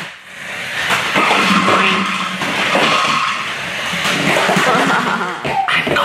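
Toy remote-control monster truck driving on a hardwood floor: its electric motor whirring and its tyres skidding on the wood, with a few sharp knocks near the end.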